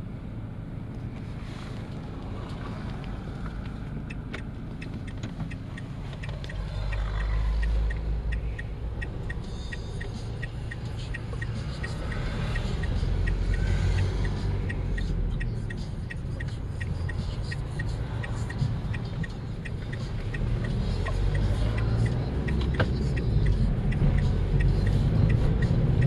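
Engine and road noise heard from inside a moving vehicle's cabin: a steady low rumble that swells a couple of times and grows louder near the end, with a regular ticking for several seconds in the middle.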